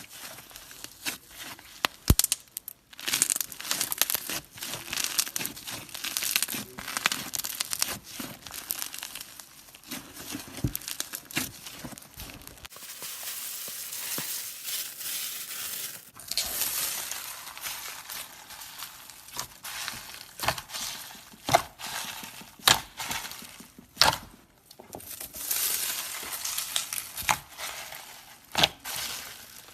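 Slime being squeezed, stretched and poked by hand, giving a dense crackling and crinkling with sharp pops and clicks. The texture of the crackle changes several times as one piece of slime gives way to another.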